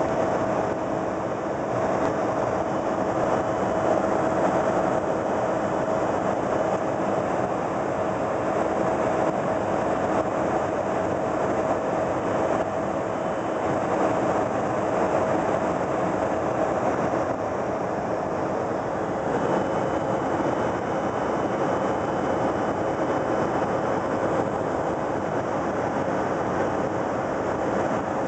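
Steady rushing noise of an airliner's engines and airflow heard inside the cabin in flight, with a constant hum running through it.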